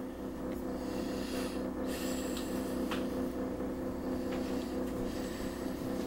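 Hamilton Beach microwave oven running with a steady electrical hum, with a few faint clicks.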